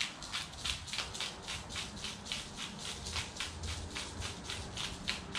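Salt and pepper being put onto an oiled russet potato: a steady, dry rattling hiss of about five strokes a second.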